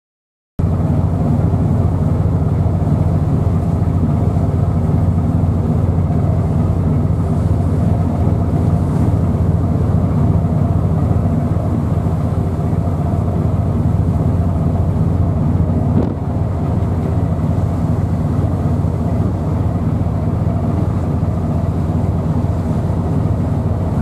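Strong wind of about 16 m/s buffeting the microphone over a rough sea, a steady heavy low rumble. A single faint click comes about two-thirds of the way through.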